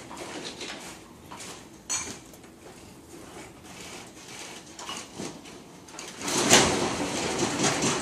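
Creaking and rattling inside a ship working in a heavy sea: scattered clicks and knocks from loose fittings and tableware, one sharper knock about two seconds in. A louder rushing surge of noise comes about six seconds in.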